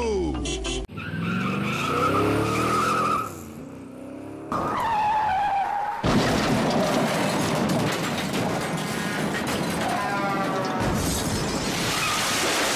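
Edited cartoon car sound effects: a car engine and tyres skidding, cut together in short segments with music mixed in. A dense, noisy stretch takes over about six seconds in.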